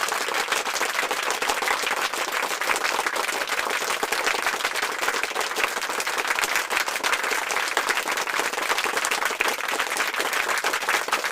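Steady applause: many hands clapping densely at an even level.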